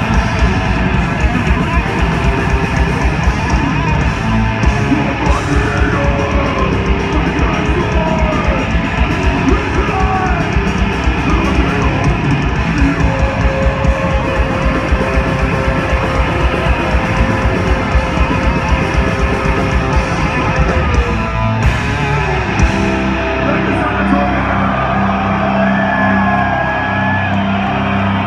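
Live death metal band playing loud: distorted electric guitars over fast, pounding drums. About 22 seconds in, the rapid drumming stops and held guitar chords ring on under a wavering lead melody.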